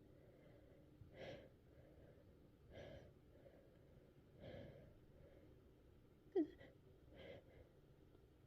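A woman's faint breathing while her nose tickles: soft breaths about every second and a half. About six and a half seconds in comes one short, sharp voiced catch that falls in pitch.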